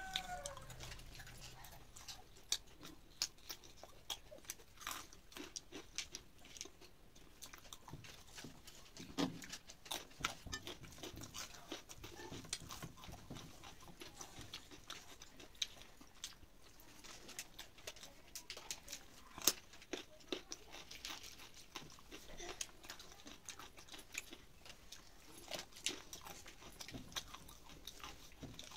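Close-up eating sounds: a person chewing rice and fried eggplant, with irregular wet mouth clicks and smacks, while her fingers mix rice on the plate.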